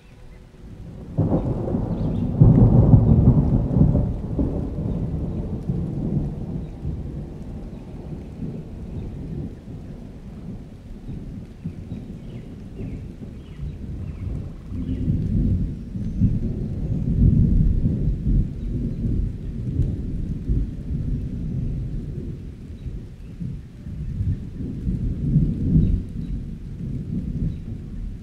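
A loud, deep rumble that starts about a second in and swells and fades several times, loudest near the start.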